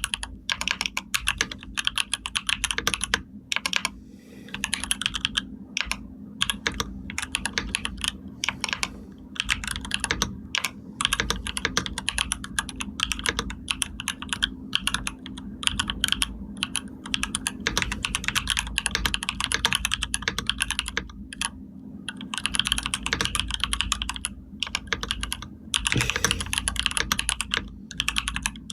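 Computer keyboard being typed on in fast, continuous runs of key clicks, broken by brief pauses, with a faint steady low hum underneath.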